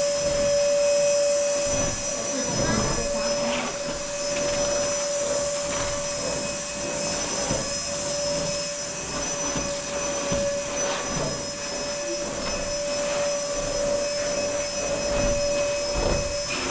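A small motor running steadily, giving a constant whine over a hiss, then cutting off suddenly at the end.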